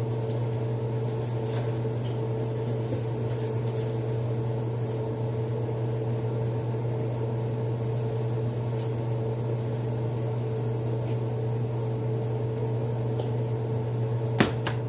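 Steady electrical hum of a running kitchen appliance, unchanging throughout, with one sharp knock near the end.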